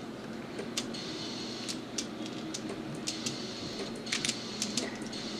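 A plastic Pyraminx puzzle being twisted by hand: a scattered run of sharp plastic clicks, with a quick cluster of several about four seconds in.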